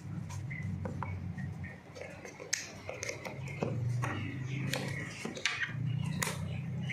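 Scattered sharp clicks, taps and light rustling of packaging being handled during an unboxing, over a low steady hum.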